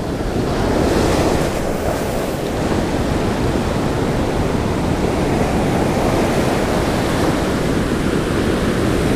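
Ocean surf breaking and washing up a sandy beach: a steady, dense rush of water, swelling slightly in the first second, with wind buffeting the microphone.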